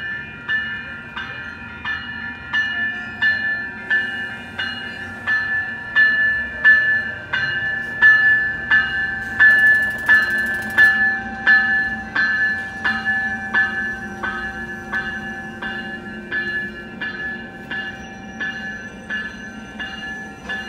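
A railroad grade-crossing bell rings steadily, about three strikes every two seconds, as a Coaster commuter train, led by its bi-level cab car, rolls in past the platform with a low rumble that swells as it draws near. There is a brief hiss about halfway through, and a thin steady whine from then on.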